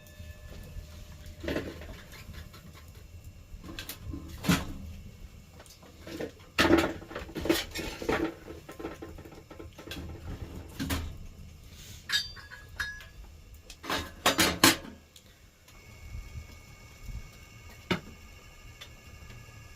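Scattered metal clanks and knocks, a few ringing briefly, as metal objects are handled and set down, followed by a few quieter seconds with a faint steady hum.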